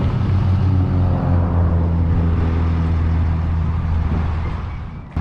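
Vehicle engine running with a steady low drone, with road and wind noise, as it pulls out onto the highway; it fades away about a second before the end, and a short click sounds at the very end.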